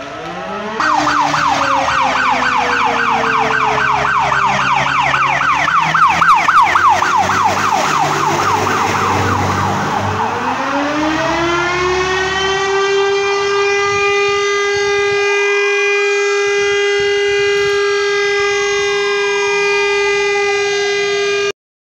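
Fire engine siren in a fast up-and-down yelp as the aerial ladder truck approaches and passes, its pitch dropping about ten seconds in as it goes by. It then sounds as steady held tones with a slow rising-and-falling wail over them, cutting off suddenly near the end.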